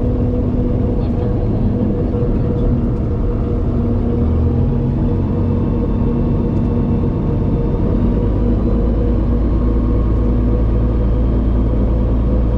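Cessna Corvalis TTx's turbocharged six-cylinder Continental piston engine running at low taxi power, a steady drone heard from inside the cabin.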